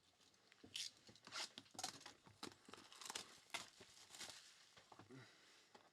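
Faint crinkling and tearing of trading card packaging, a run of short crackling snaps as boxes and wrappers are opened by hand.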